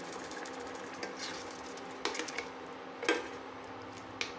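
Steel ladle stirring thin tamarind curry in a stainless steel pot, clinking sharply against the pot a few times, about two, three and four seconds in, over a steady hiss and faint hum.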